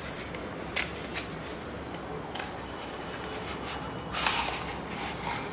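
Hands handling and opening a cardboard product box to take out a body spray bottle. There are two short sharp taps a little under a second in, then a brief rustling scrape a little after four seconds.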